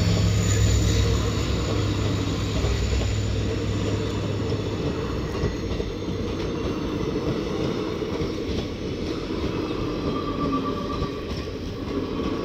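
Passenger train coaches rolling past close by, with a steady rumble and clatter of steel wheels on the rails. The locomotive's low engine drone fades away over the first few seconds as it moves off.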